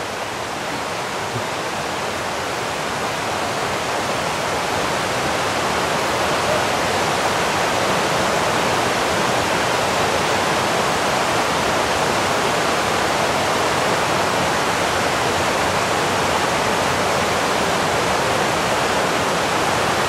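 Fast mountain stream rushing over rocks in white-water rapids, a steady, unbroken rush of water that grows a little louder over the first few seconds.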